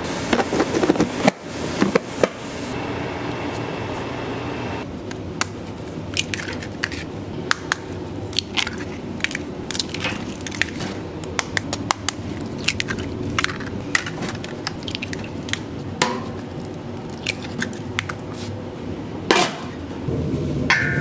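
Kitchen handling sounds over a steady background hum. A plastic food-container lid is knocked and handled in the first couple of seconds, followed by many scattered sharp clicks and light clatter.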